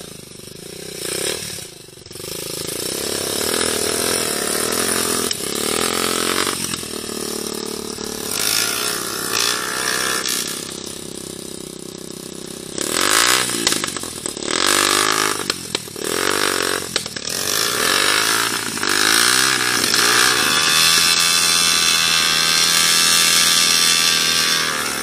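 Motorcycle engine revving up and easing off again and again while riding a dirt trail, then held at high revs for several seconds near the end.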